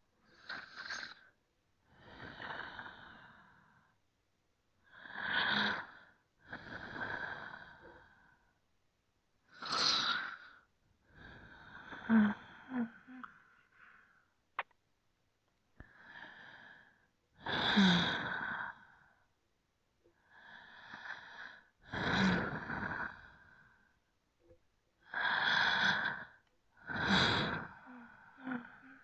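A person breathing slowly and deeply, close to the microphone: about a dozen airy inhales and exhales, each one to two seconds long, with short pauses between. A few of the breaths carry a faint low hum of the voice, and a single short click comes about halfway through.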